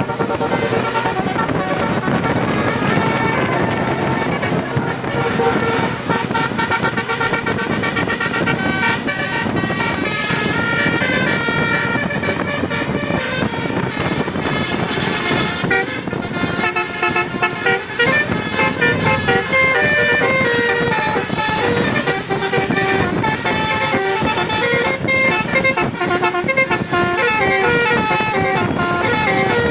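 Telolet Basuri multi-tone bus horn playing a melody, its notes stepping up and down continuously, over the rumble of a running bus engine.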